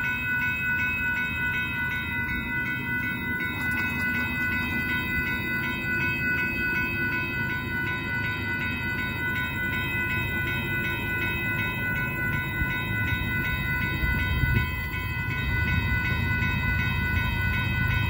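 Railroad grade-crossing warning bells ringing in a fast, steady rhythm. Over the last few seconds a low rumble grows beneath them as the train approaches.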